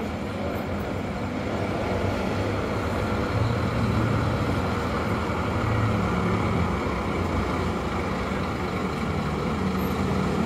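Large bus's diesel engine running as the bus pulls out of the terminal, a steady low hum that swells a little a few seconds in.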